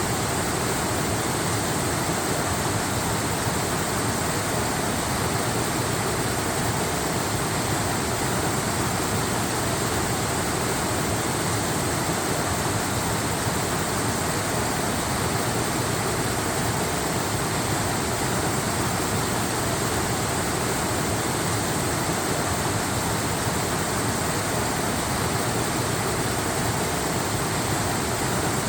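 Waterfall rushing steadily, an even, unbroken wash of falling water with no change in level.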